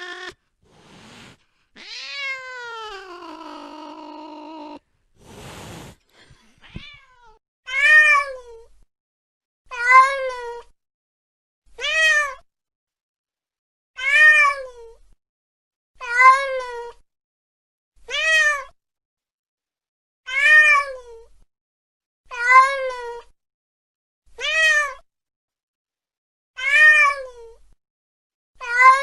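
Domestic cat meowing: a drawn-out meow falling in pitch, a brief noisy burst, then the same short meow repeated about every two seconds, identical each time.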